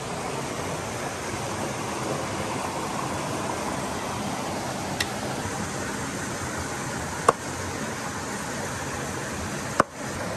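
Steady rush of a fast-flowing river. Three sharp knocks, from the knife striking the cutting board as a whole fish is cut up, come about halfway, a couple of seconds later and near the end.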